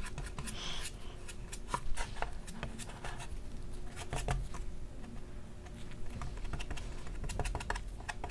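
Brush working resin into fiberglass cloth over a wooden wing joint and scraping resin from a small plastic cup: irregular light clicks, taps and scratches, a few each second.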